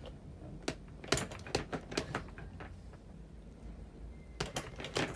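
Plastic storage bin's lid and handle clicking and knocking as a toddler pulls at them, trying to open it: a quick string of sharp knocks from about a second in, a pause, then more near the end.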